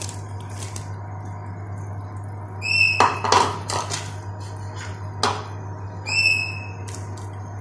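Wooden spatula knocking and scraping against a nonstick wok as crumbled paneer goes into the reduced milk: a cluster of sharp knocks about three seconds in and another near five seconds, over a steady low hum. A short high chirp comes twice, a few seconds apart.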